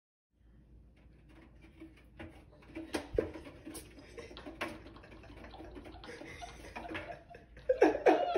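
A kitten's paws and claws pattering and scrabbling on the stainless steel drum of an empty front-loading washing machine as it runs around inside, with scattered light taps and a few louder knocks.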